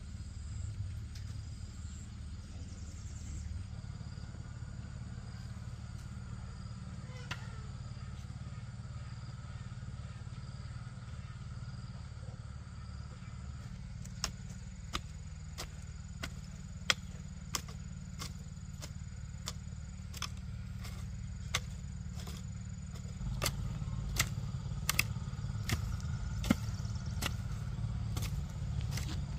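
Blade chopping bamboo: sharp, irregular strikes, one or two a second, starting about halfway through, over a steady low rumble.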